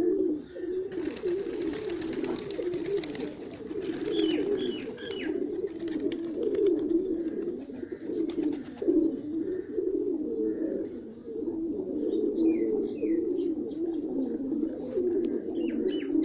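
A flock of old-breed Pakistani domestic pigeons cooing continuously, many birds overlapping in a low, rolling murmur. A few short, high chirps come in about four seconds in and again near twelve seconds.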